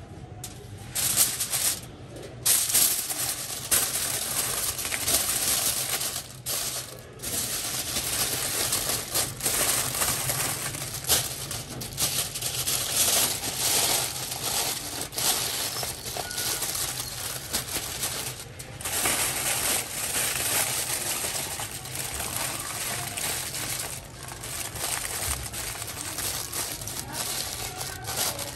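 Aluminium foil being folded, scrunched and pressed by hand around a whole fish, crinkling and rustling continuously with uneven loud and soft spells, over a faint steady low hum.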